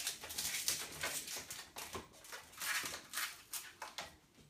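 Inflated size-160 latex modelling balloon squeaking and rubbing under the hands as it is twisted into bubbles, in irregular short bursts.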